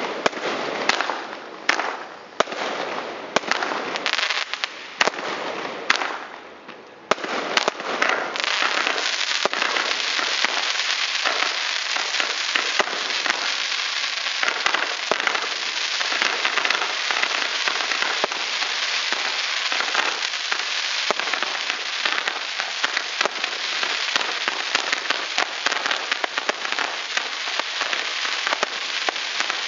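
Fireworks going off: a run of separate sharp bangs with short gaps between them, then from about seven seconds in a dense, unbroken crackling.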